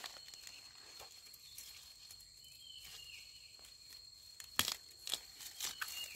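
Dry leaf litter and grass stems crackling as a hand works into the undergrowth at the base of a bamboo stem. There is one sharp snap about four and a half seconds in, then a few smaller crackles.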